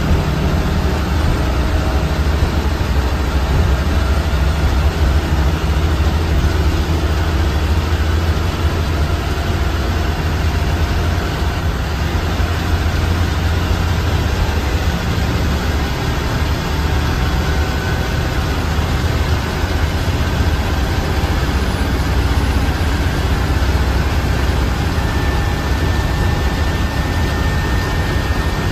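Steady low engine rumble and road noise of a bus cruising on a highway, heard from inside the bus. A faint whine creeps slowly up in pitch in the later part.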